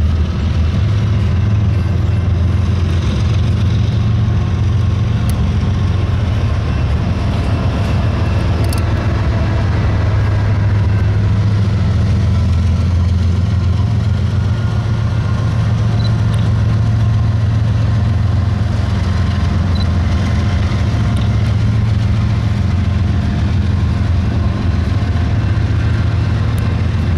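BNSF double-stack intermodal train rolling past with a steady low rumble of wheels on rail. A BNSF diesel locomotive passes about halfway through.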